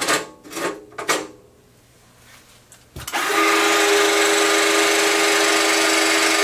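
Cordless drill with a dull step bit (unibit) boring through the tough steel of an outdoor-rated transfer switch enclosure. It is a steady motor whine under a grinding hiss that starts suddenly about halfway through and keeps going.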